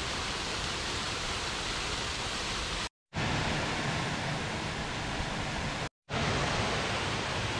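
Waterfall pouring heavily into the creek bed below, a steady rushing of water. It drops out twice for a split second, about three and six seconds in.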